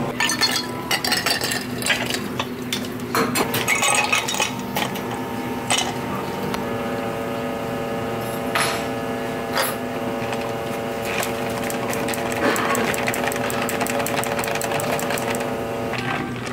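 Ice cubes clinking against glass mugs, then lemon-lime soda poured from a can over ice and fizzing, over a steady hum.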